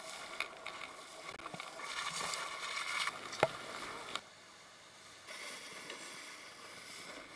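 Faint rush and splash of lake water against a towed tube and a moving boat hull, with one sharp knock about halfway through; the rush drops quieter just after it.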